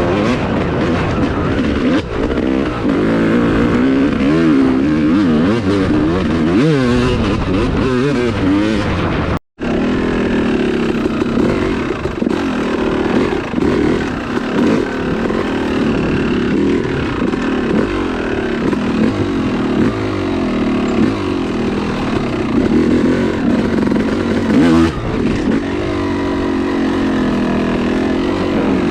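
Yamaha YZ250 two-stroke dirt bike engine being ridden hard off-road, its pitch rising and falling constantly as the throttle is opened and rolled off. The sound breaks off completely for a split second about nine and a half seconds in.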